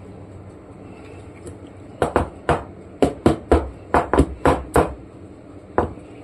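Metal loaf pan full of cake batter knocked down repeatedly on a granite countertop: about a dozen quick knocks, three or four a second, starting about two seconds in, then one last knock near the end. The tapping settles and levels the batter and knocks out air bubbles.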